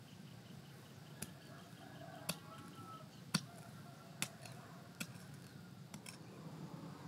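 Short, sharp strokes of a small tool digging into dry earth, about one a second, over a faint steady outdoor background.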